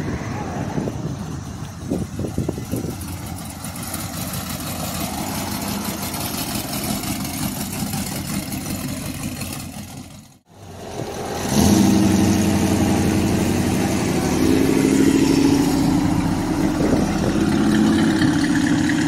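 Open-air background noise at first. After a brief break, a classic car's engine runs close and loud at low speed with a steady, deep exhaust note as the car pulls out onto the road.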